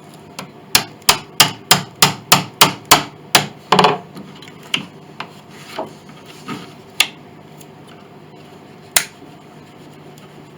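Hammer tapping a chisel-edged blade into a glued joint beside a piano's spruce soundboard, to crack the old glue loose: a run of about ten sharp strikes, about three a second, then a few lighter taps and two single blows.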